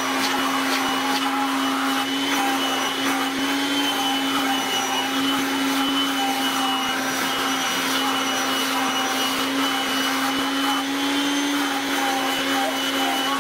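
Electric motor of a household appliance running steadily: a constant hum with a higher whine over an even rushing noise.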